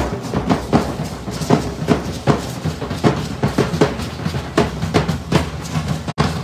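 Large bass drums beaten by hand-held sticks in a quick, steady rhythm, the drumming that accompanies a danza de pluma (matachines-style) dance.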